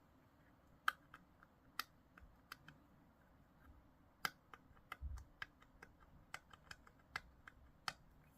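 Irregular light clicks and taps of small plastic model-kit parts and hobby tools being handled at a work surface, about twenty in all, the sharpest about a second in, a little after four seconds and near the end.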